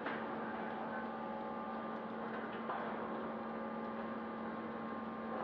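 Hot-rolling steel-ball skew rolling mill line running, a steady machine hum with a low steady tone and a few fainter higher tones, with a few faint knocks.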